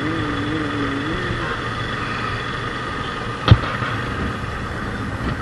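Motorcycle running along the road, engine and riding noise steady, with a wavering tone that fades out about a second in. A single sharp knock about three and a half seconds in is the loudest sound.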